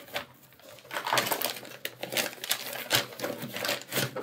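A mailed paper envelope being opened by hand: paper crackling and rustling in a quick, irregular run of crisp clicks, starting about a second in.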